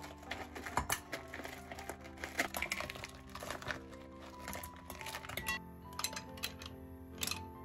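Background music with a run of sharp clicks and clatters: frozen mussels in their shells tumble out of a plastic bag into a bowl, then are tipped into a pan.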